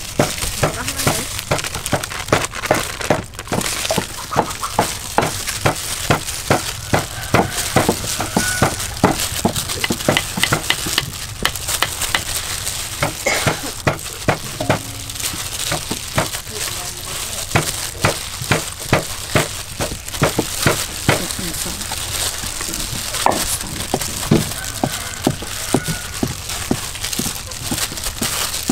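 Rapid, irregular knocking and clinking from hands-on food preparation, a few sharp taps a second, while raw chicken pieces are pressed and turned in flour in a steel tray.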